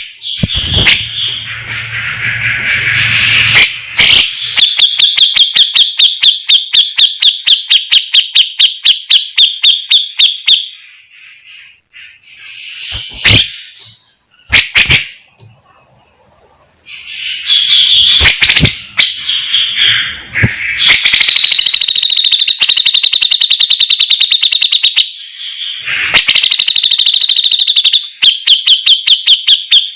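Cucak jenggot (grey-cheeked bulbul) calling loudly: long runs of sharp, rapidly repeated notes, about five a second, broken by short pauses.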